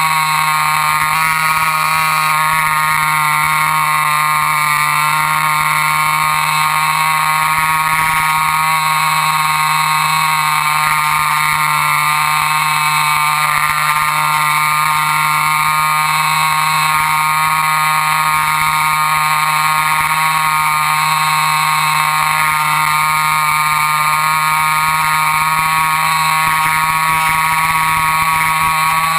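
RC model airplane's motor and propeller running steadily at a constant high-pitched whine with several overtones, its pitch wavering only slightly.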